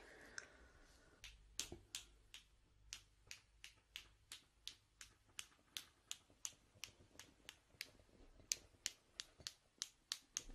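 Light, crisp tapping in an even rhythm of about three taps a second, faint, as in ASMR tapping.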